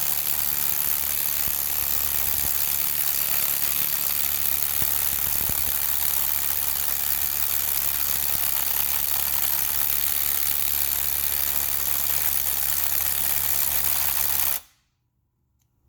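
Cordless impact wrench on its maximum setting hammering steadily against a 1/4-inch drive ratchet, stopping abruptly about a second before the end. The ratchet holds under the hammering.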